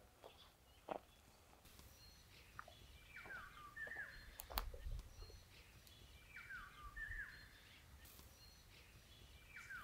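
Faint birdsong: a songbird sings a short phrase of falling notes twice, about three seconds apart, with other birds calling softly. A sharp click sounds about halfway through.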